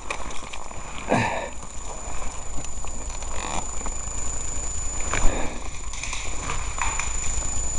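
Rustling of dry branches and undergrowth as someone pushes through dense brush, with a few sharper twig cracks, the clearest about five seconds in.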